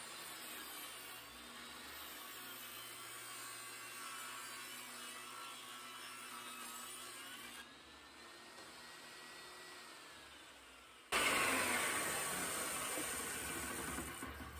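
Benchtop table saw running, its motor and blade making a steady whir while a wood block is cut. About eleven seconds in the sound jumps suddenly louder, then its whine falls in pitch and fades as the blade coasts down.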